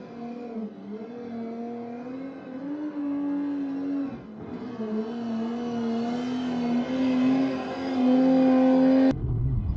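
Rally vehicle engine running at steady high revs, its note wavering slightly and growing louder toward the end. Just before the end it cuts sharply to another engine revving up.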